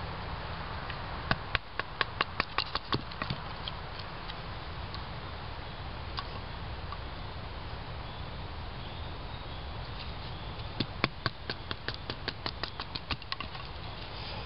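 Batoning small cedar sticks with a knife: two runs of quick, sharp wooden taps, about five a second, one near the start and one near the end.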